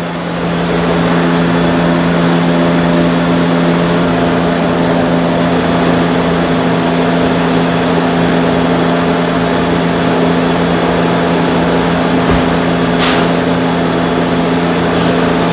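Steady machine hum at one fixed pitch with an even hiss over it. A brief faint squeak comes near the end.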